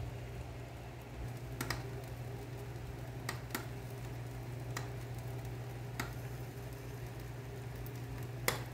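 Steady low hum with a few scattered sharp clicks, about six in all, the loudest near the end.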